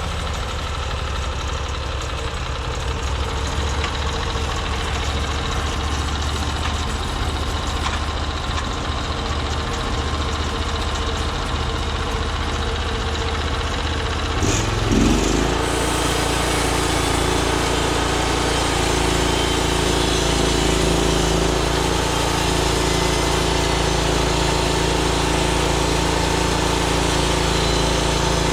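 Small gasoline engine of a Norwood MX34 portable bandsaw mill idling, then throttled up about halfway through and held at a steady higher speed.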